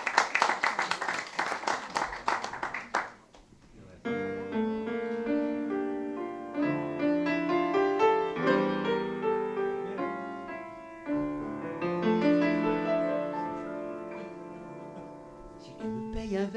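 An audience applauds for about three seconds. After a short pause, a piano begins the introduction to a chanson, playing chords.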